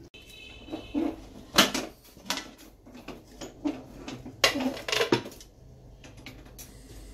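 Aluminium pressure cooker lid being unlocked, lifted off and set down: a series of metal clanks and scrapes, the loudest about a second and a half in and again around four and a half to five seconds in.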